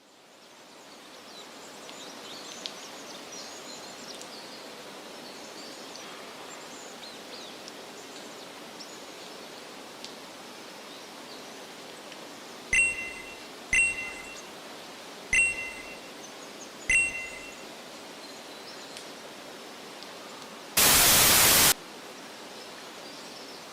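Added sound effects: a steady outdoor ambience with faint bird chirps, then four short ringing dings about a second apart, then a loud burst of static lasting about a second.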